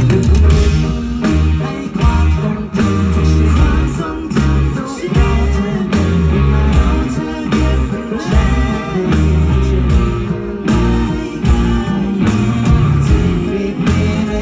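Live rock band playing: electric guitar, bass and drum kit keeping a steady beat, with a voice singing over it.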